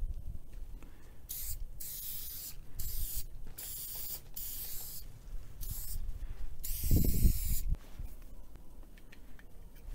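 Paint marker dragged across a wooden board in quick strokes, each a short scratchy hiss with brief gaps between. About seven seconds in, a longer, louder stroke comes with a dull thump.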